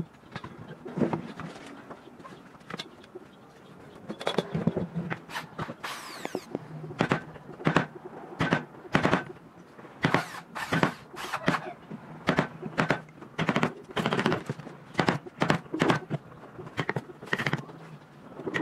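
Wood chisel cutting a notch into a wooden chair rail: a run of sharp knocks and cracks as chips split away from the wood.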